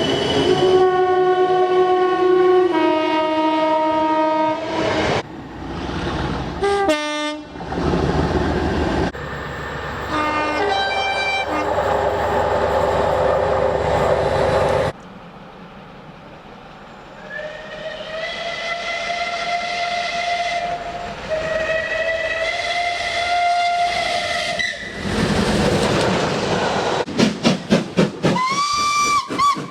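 A series of train horn recordings cut together. A multi-tone train air horn sounds a long blast at the start and two more blasts a little past the middle. Between them is a noisy stretch of a train running with clatter, and near the end comes a run of quick short whistle toots.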